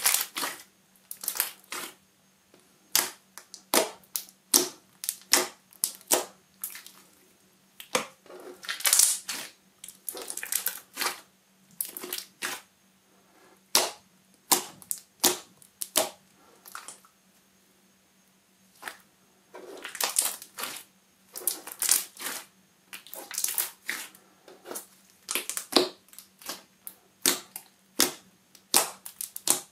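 Thick white PVA-glue slime being kneaded, squeezed and pressed by hand, giving irregular clusters of sticky clicks and pops, with a short lull just past the middle.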